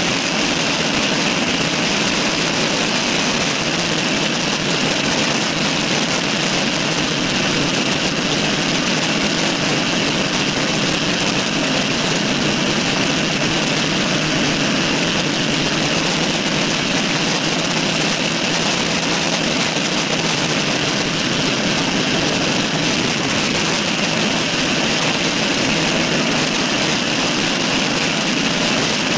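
Steady rush of wind over the microphone of a handlebar-mounted camera on a road bicycle riding at speed, unbroken throughout.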